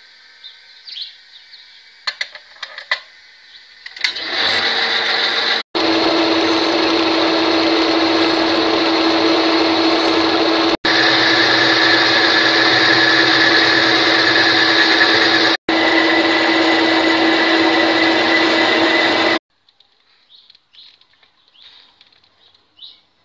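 Homemade metal lathe running steadily with a steel bolt spinning in its chuck, a continuous machine sound with a steady hum. It starts about four seconds in after a few light clicks, has three very short breaks, and cuts off suddenly near the end.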